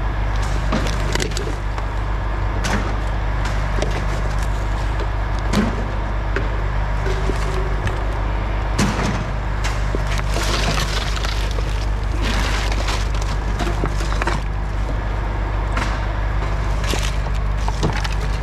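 Rubbish being rummaged through in a dumpster: boxes and junk handled and shifted, with scattered knocks and bursts of rustling over a steady low hum.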